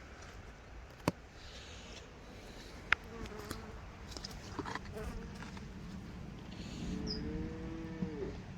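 Cattle mooing in the field: a short call about three seconds in and one longer, drawn-out moo near the end. Two sharp clicks come earlier, about one and three seconds in.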